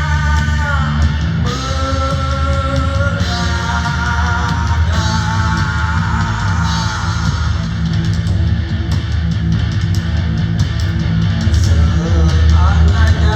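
Rock band playing loud, guitar-led music live at a stage sound check.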